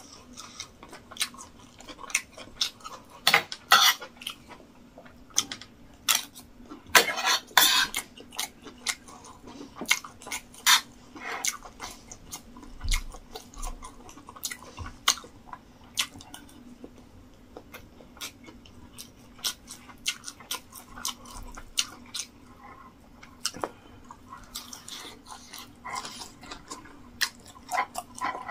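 Close-up chewing and lip-smacking of a mouthful of rice and meat stew, in many irregular wet clicks, with a spoon now and then clinking and scraping on the plate. A faint steady hum sits underneath.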